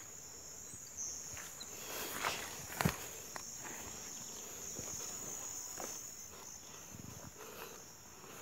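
Footsteps rustling through tall grass, with a sharper knock about three seconds in. Insects drone steadily at a high pitch behind them.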